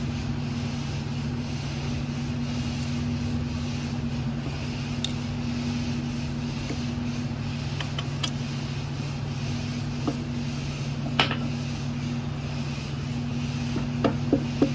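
Steady low machine hum in the workshop, with scattered light metallic clicks and taps as engine parts are handled, including a quick run of several clicks near the end.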